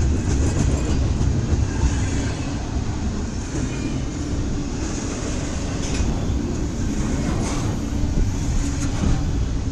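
Long CSX double-stack freight train passing close by: a steady rumble of the cars' wheels rolling on the rails, with occasional faint clicks.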